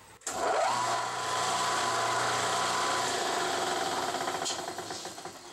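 Benchtop mill-drill's spindle motor switched on, its whine rising to a steady pitch within about half a second. It runs for about three seconds while a hole position is spot-marked on the backing plate, then is switched off and winds down.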